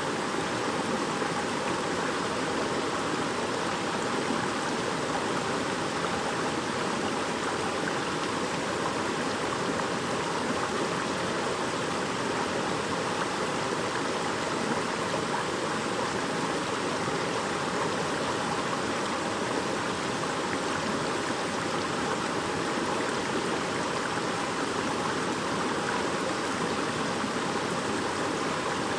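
A shallow stream babbling and splashing over rocks, a steady rushing of water with no breaks.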